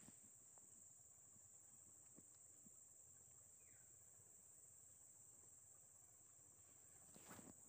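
Near silence except for a faint, steady, high-pitched insect chorus, with a few soft clicks near the end.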